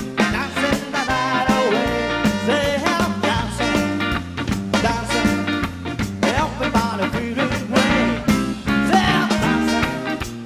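Live band playing an upbeat number with a steady beat, a bass line, and a melodic lead line that bends in pitch.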